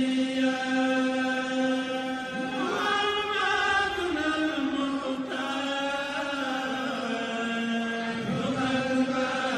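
Background vocal music: a single voice chanting in long held notes that slide slowly from one pitch to the next.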